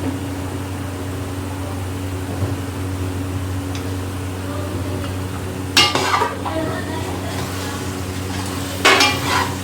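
A metal spoon stirring spiced minced meat (keema) in a cooking pot, with two loud scrapes against the pot about six and nine seconds in. A steady low hum runs underneath.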